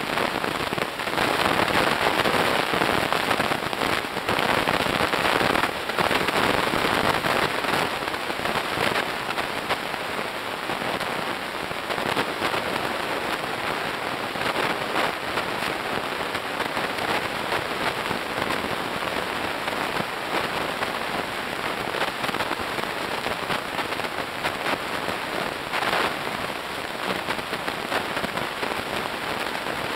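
Underwater crackle of snapping shrimp on a coral reef: a dense, steady hiss of countless tiny clicks, a little louder in the first several seconds.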